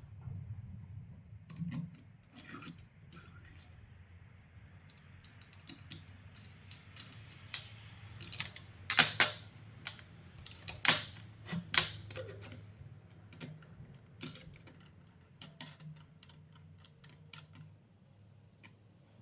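A series of irregular clicks and knocks, the loudest a few sharp knocks in the middle, over a low steady hum.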